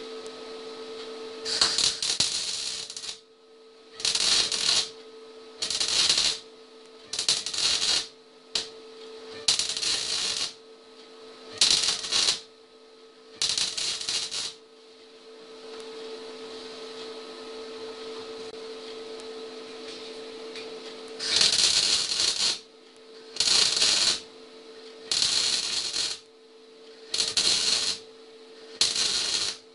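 Electric arc welding in short bursts, about a dozen crackling welds of around a second each with a longer pause in the middle, typical of stitch or tack welding. A steady low hum sounds between the welds.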